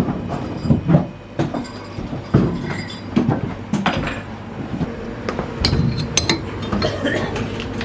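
Irregular knocks, clinks and rattles from handling a pig's leg and hanging it on the metal hooks of a meat fridge.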